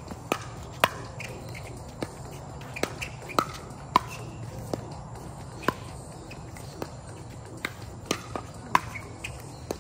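Pickleball rally: a series of sharp pops as paddles strike the plastic ball, quick exchanges at irregular intervals with a few softer knocks between them.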